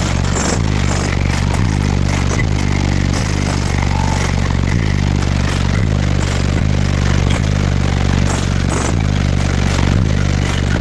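Bass-heavy music played at full volume through two Sundown Audio X v2 12-inch subwoofers in the car, deep bass notes repeating in a steady beat, with rattling and buzzing over the top.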